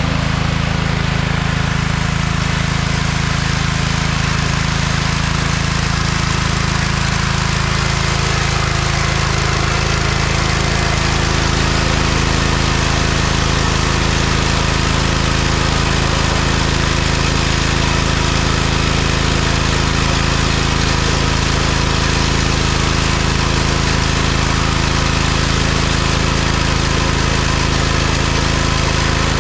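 Gas-engine pressure washer running steadily at constant speed, with the hiss of its water spray.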